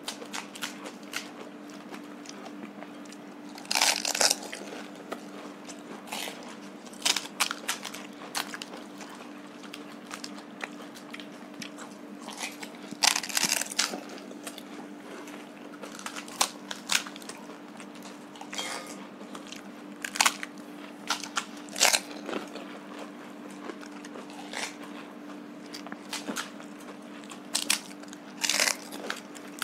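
Crisp fried puri shells of fuchka cracking as they are broken open and bitten, with crunching and chewing. The cracks come in short, irregular clicks every second or so, with a few longer bursts of crunching, over a steady low hum.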